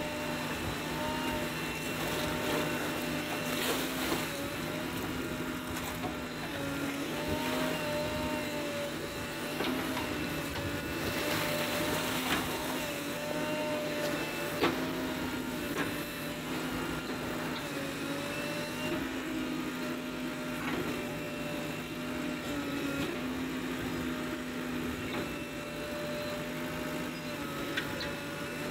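JCB backhoe loader's diesel engine running steadily, its pitch wavering a little as the hydraulic backhoe arm digs and churns waterlogged clay to make brick mud. A couple of brief rushing noises rise over the engine, around four and twelve seconds in.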